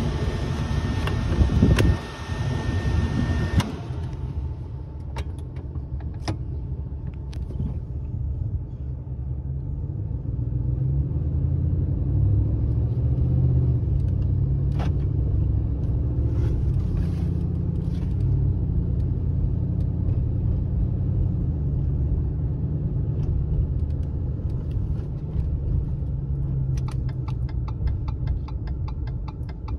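Pickup truck cabin while driving: wind noise for the first few seconds, then a steady low engine and road hum that swells as the truck picks up speed. Near the end a turn signal starts ticking in a steady rhythm.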